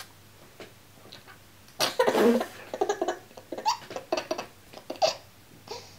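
A baby laughing in a string of short bursts, beginning with a loud breathy burst about two seconds in and dying away after about five seconds.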